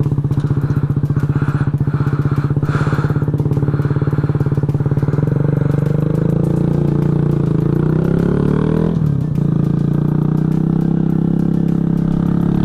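Kawasaki Z125 Pro's 125 cc single-cylinder four-stroke engine running under way. It holds a steady pitch, rises as the bike accelerates, drops sharply about nine seconds in at a gear change, then pulls steadily again.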